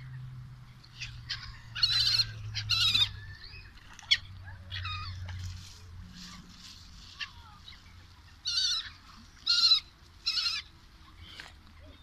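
A flock of gulls calling over a lake: harsh, scratchy cries, loudest in a pair about two seconds in and three more in quick succession near the end, over a low steady rumble.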